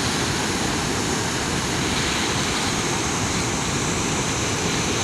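Steady rush of a high, fast-flowing river pouring over a dam, an even noise that does not change.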